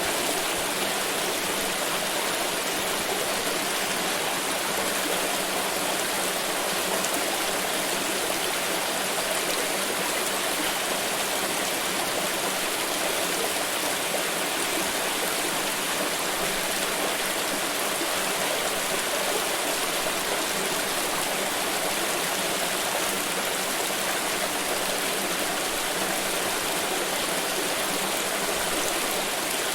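Water flowing in a stream, a steady, unbroken rushing.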